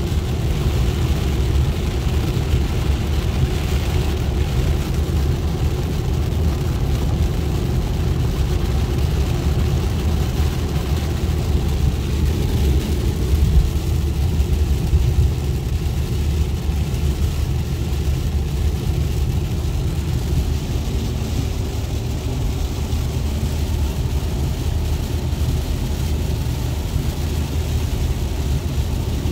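Steady noise inside a car's cabin at highway speed on a rain-soaked road: a low rumble from the engine and road, with a hiss from the tyres on wet pavement and rain on the car.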